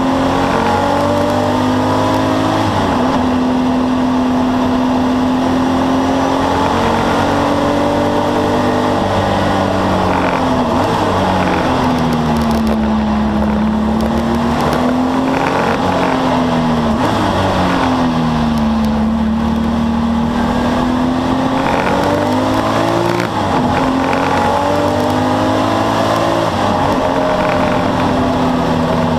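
A Porsche 964's air-cooled flat-six engine heard from inside the stripped race car's cabin, running hard at a steady pitch. Further on it falls away and climbs again through corners, with quick drops in pitch as it shifts up near the end.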